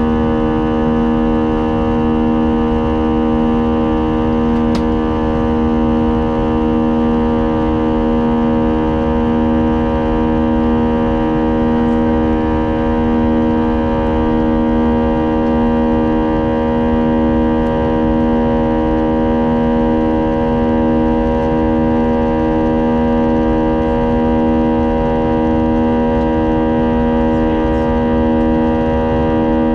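Airbus A320 jet engines humming steadily, heard inside the cabin. The drone is made of several fixed tones that beat slowly against one another, over a low rumble, and it holds unchanged throughout.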